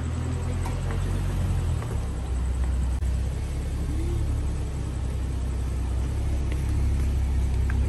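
Nissan 370Z's V6 engine idling steadily, a low even note with a slight change in its pitch about two seconds in.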